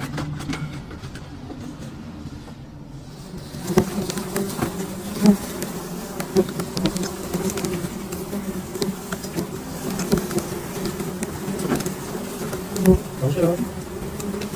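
A swarm of honeybees buzzing around their hive in a steady hum that gets louder about four seconds in, with scattered sharp clicks and knocks.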